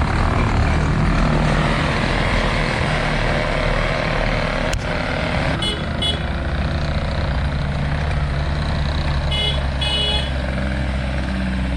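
Skid steer loader's diesel engine running steadily at working speed, with two short bursts of high electronic beeps about six and ten seconds in.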